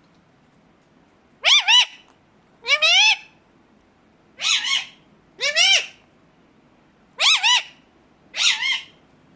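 Ringneck (rose-ringed) parakeet calling: six short squawks, each a quick rising-and-falling double note, spaced about one to two seconds apart.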